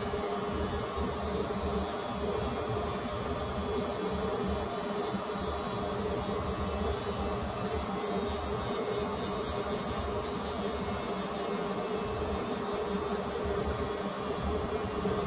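Electric hair clippers running steadily against the head during a self-administered haircut, a constant hum with no breaks.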